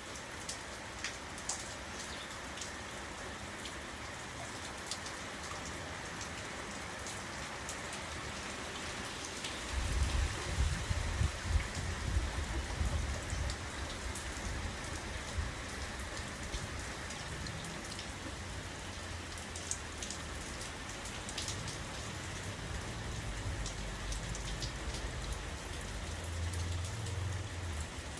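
Steady rain falling, with single drops clicking close to the microphone. About ten seconds in, a low uneven rumble joins the rain and carries on.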